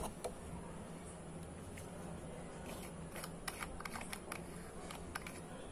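Nikon FG film SLR being handled: a scattered run of light clicks and ticks from fingers working the lens rings and body controls, thickest around the middle, over a faint steady low hum.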